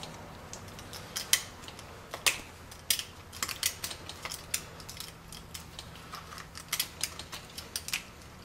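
Utility knife slicing through an old CV joint boot on a drive axle: a string of short, irregular clicks and snicks as the blade cuts and catches in the boot material.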